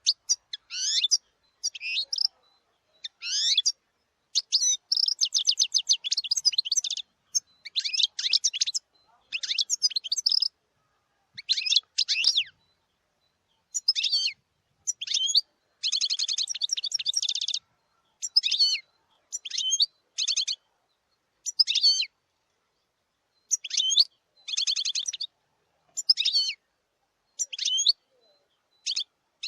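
Wild European goldfinch singing: a long run of short, high-pitched twittering phrases and rapid buzzy trills, each half a second to about two seconds long, broken by brief silent gaps.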